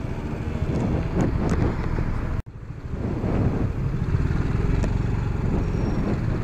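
Scooter engine running while riding, with wind on the microphone. The sound cuts out for an instant about two and a half seconds in, then carries on.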